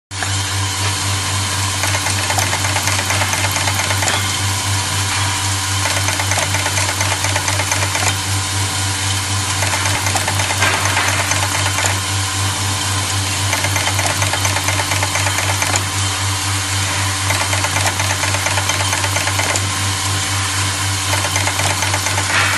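Automatic commutator-making machine running: a loud steady hum with a dense mechanical rattle, and a repeating stroke about every two seconds as the press cycles over the rotary indexing table.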